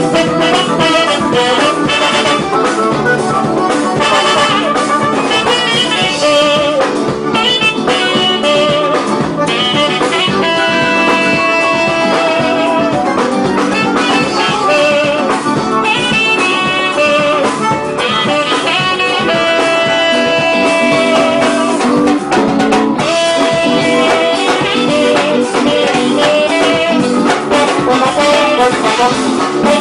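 Saxophone playing a melody with long held notes and a slight vibrato, over loud accompaniment with a steady beat.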